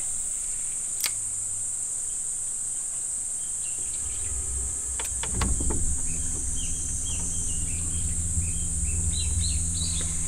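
Steady high-pitched insect drone, with a bird giving short repeated chirps through the second half. A low steady hum comes in about five seconds in, and there are a few brief clicks.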